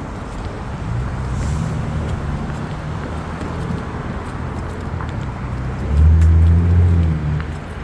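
Street traffic: motor vehicle engines running with a low steady hum, and one vehicle's engine much louder for about a second near the end.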